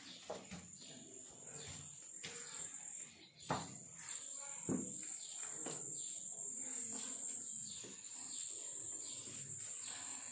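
Steady high-pitched insect drone, faint, growing louder about four seconds in, with two sharp knocks a little over a second apart near the middle.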